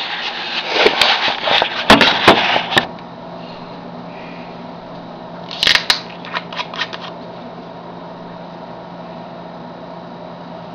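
Handling noise of a handheld camera being moved and repositioned: a run of rustles, sharp clicks and knocks over the first three seconds, then a brief cluster of clicks and a knock about six seconds in, with a steady low room hum between.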